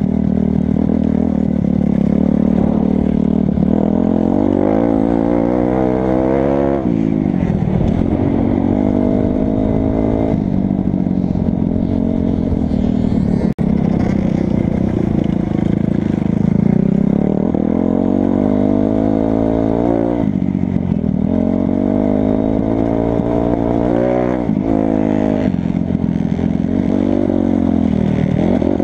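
Kawasaki 250 dirt bike engine heard from on the bike, revving hard. Its pitch climbs as the rider accelerates, then drops sharply off the throttle, over and over, with one sharp knock about halfway through.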